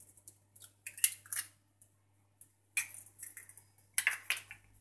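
Eggshell crackling and snapping as a raw egg is broken open by hand over a glass bowl, in three short clusters of crisp clicks.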